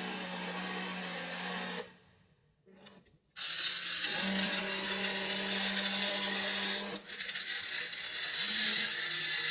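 Small electric gear motors of a Wltoys RC toy excavator running with a steady whine, stopping for about a second and a half around two seconds in, then starting again. Its tone shifts a couple of times as the machine changes movement.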